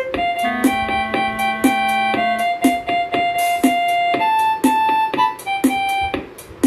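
Casio SA-47 mini keyboard playing a built-in song-bank tune with the melody switched off: held accompaniment chords over a steady drum beat of about two hits a second. The music stops shortly before the end.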